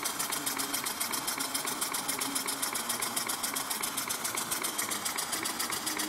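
Model horizontal mill engine running steadily, its exhaust puffing in an even rhythm of about eight beats a second.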